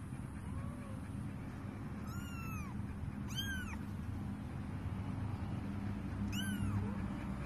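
A tiny kitten mewing: one faint mew, then three high mews that rise and fall in pitch, about two, three and six seconds in.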